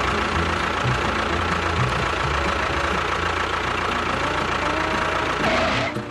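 A motor running steadily, a dense mechanical rumble with a faint steady whine, cutting off near the end.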